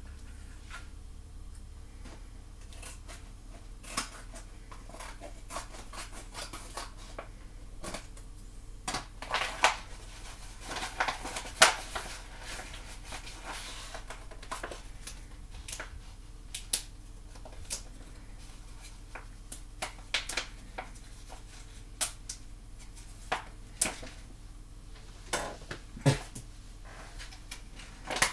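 Rustling and crinkling of a kraft paper pouch of powder being handled, with scattered small clicks and knocks; the rustling is thickest in the middle.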